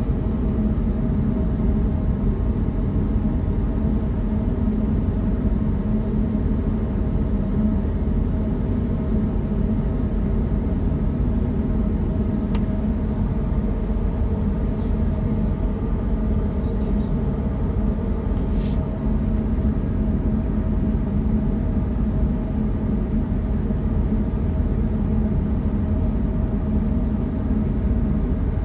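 Steady low drone of a ship's engines and machinery, a rumble with a constant hum at a couple of fixed pitches. A few faint ticks come through near the middle.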